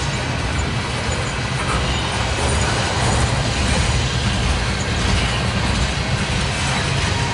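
Freight train tank cars rolling past at close range: a steady rumble of steel wheels on the rails.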